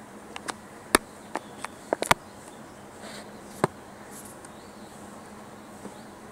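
A series of sharp, irregular clicks and knocks, about ten, bunched in the first two seconds with a couple more later, over a faint steady background hum.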